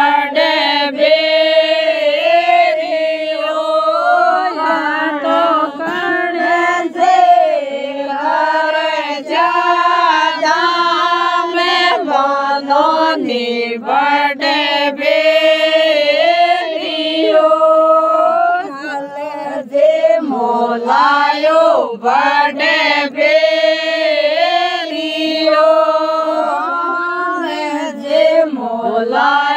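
Singing of a traditional folk wedding song (vivah geet), the voice holding long notes and gliding between them with ornaments.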